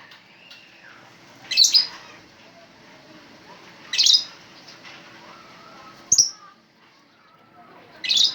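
Caged lovebirds giving short, loud, high-pitched shrieks, four calls about two seconds apart, over faint chattering.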